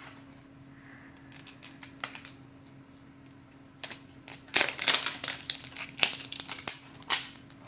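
Thin plastic wrapper of a toy capsule being handled and peeled off, with a few scattered crackles at first, then about three seconds of dense, loud crinkling and crackling.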